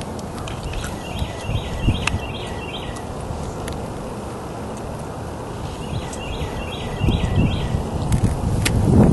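Outdoor wind noise on the microphone, growing louder with gusts near the end. Over it a bird calls twice, each time a quick series of about six short high notes.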